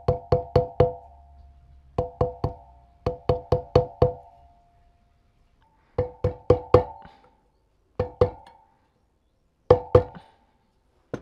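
A hammer taps on a socket and old seal to drive a new wheel-bearing seal into a motorcycle's rear wheel hub. The knocks come in short quick bursts of two to five, each ringing briefly with the same metallic pitch.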